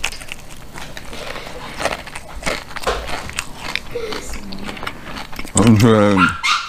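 Crisp crunching and crackling as beer-battered fried ocean perch is bitten and chewed: many short crackles in quick succession. Near the end a loud voice cuts in briefly.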